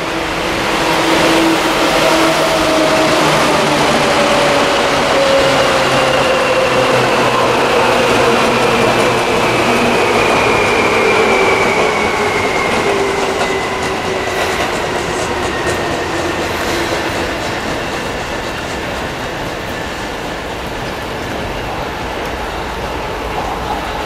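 Yellow Seibu electric commuter train running past: wheels clattering on the rails with a whine that falls slowly in pitch. It is loudest in the first half and eases as the train moves away.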